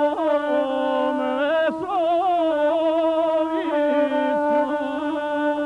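Gusle, the single-string bowed folk fiddle, played with a man's voice singing South Slavic epic verse. The sound is long held notes with quick wavering ornaments and no pause.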